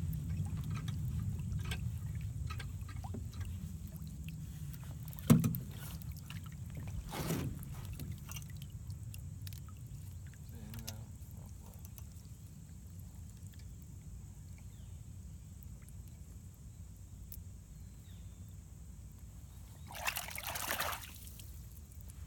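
Water trickling and sloshing as a quahog rake of pond-bottom muck is lifted and handled in the boat, over a low steady rumble. A single sharp knock about five seconds in is the loudest sound, a softer one follows two seconds later, and a brief hissing rush comes near the end.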